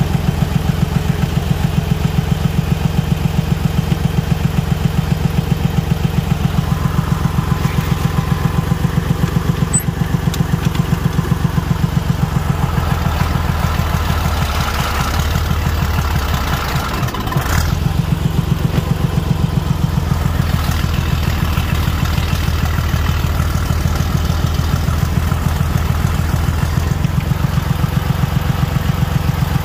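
Tractor engine running with an even, rapid firing beat. The note shifts as it takes load in the middle, with a brief dip about seventeen seconds in, while the tractor is frozen down in the snow.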